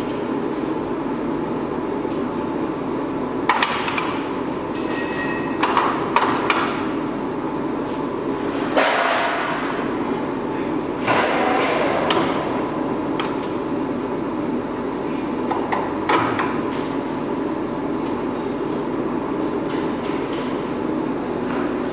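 28" x 72" Axelson engine lathe running under power: a steady geared whir from the headstock with a faint whine, broken by several irregular knocks and clatters, the loudest about nine seconds in.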